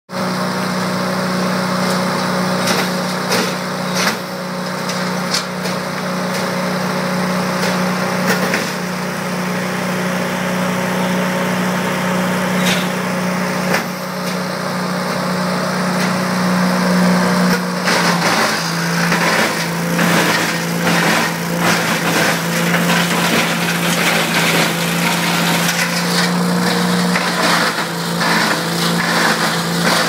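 Vermeer wood chipper's engine running steadily while branches are fed in and chipped, with scattered cracks and crunching of wood. A little past halfway the engine note drops slightly and the chipping grows rougher and louder as the machine takes the load of a long branch.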